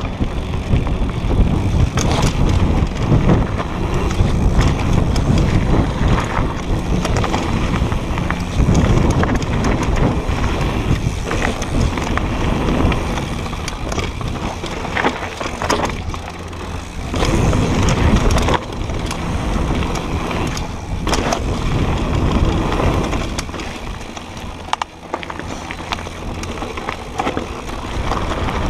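Propain Tyee mountain bike descending a dry dirt trail at speed: knobby tyres rumbling over dirt and loose stones, with constant rattling and knocking from the bike as it hits bumps.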